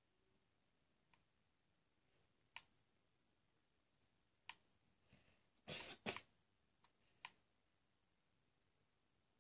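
Faint, sparse clicks, one every second or two, from buttons on a TV remote control being pressed to skip forward through an episode. A little past the middle comes a louder short noise in two quick bursts.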